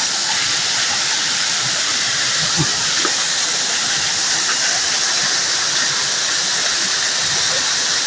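Waterfall rushing steadily, a fairly big flow of water pouring down over rock.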